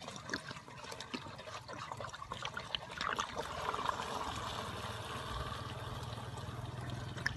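Petrol glugging out of an upturned bottle through a plastic funnel into a motorcycle's fuel tank. It starts as irregular gurgles and settles into a steadier pour about halfway through.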